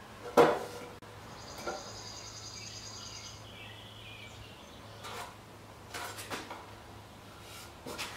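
Light clicks and taps of hand tools being handled against a wooden post, the sharpest about half a second in, over a faint low hum. A high pulsing trill sounds for about two seconds, starting about a second in.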